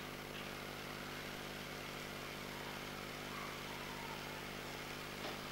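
Steady low hum with an even hiss: the background noise of an old Super 8 film soundtrack, with no distinct event.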